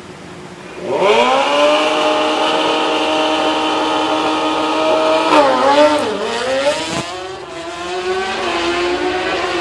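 Sport motorcycle engine revved sharply about a second in and held at high revs on the start line, then launched a little past halfway: the pitch dips as it takes up the load and climbs again as it pulls away, with a gear change partway through the run.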